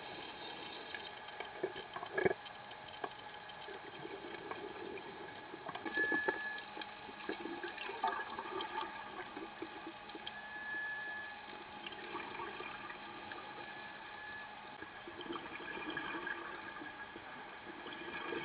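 Underwater recording of a scuba diver's regulator breathing, with surges of bubbling exhaust and scattered faint clicks.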